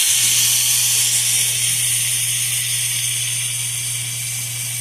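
Seasoned chicken pieces sizzling in a hot pan over a burner, a steady bright hiss that eases slightly toward the end, with a steady low hum beneath.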